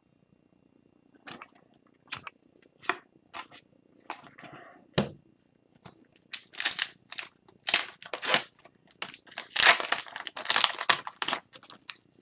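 Foil wrapper of a hockey card pack crinkling and tearing open: a few light clicks and rustles at first, then dense, sharp crackling from about halfway through.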